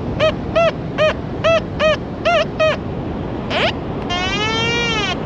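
Quest Q30 metal detector giving a run of short, evenly repeated target beeps as its coil sweeps back and forth over a buried target, then, near the end, a longer, lower tone lasting about a second. A steady rush of surf runs underneath.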